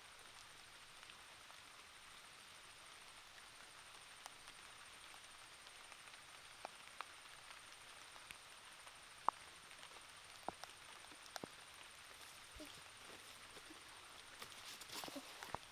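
Faint outdoor ambience: a soft steady hiss with a thin high steady tone, and scattered sharp clicks. Near the end come more frequent rustles and knocks as a barefoot person gets up among rocks and dry leaves.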